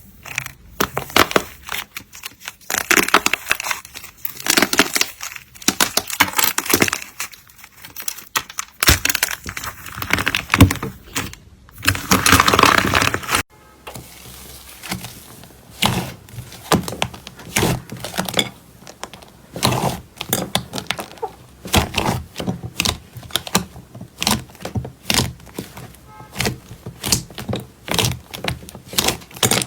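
Slime being squeezed, stretched and poked by hand, making dense crackling and popping clicks. The sound changes abruptly about thirteen seconds in, to sparser, lower pops and clicks.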